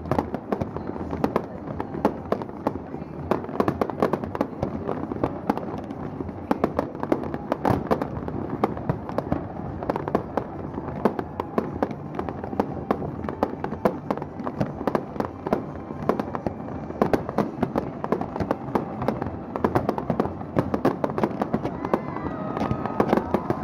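Fireworks going off in a dense, unbroken stream of sharp pops and crackling bangs.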